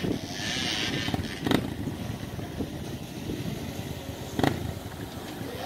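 Dirt bike engines running and revving as riders struggle up a steep climb, with two sharp knocks about three seconds apart.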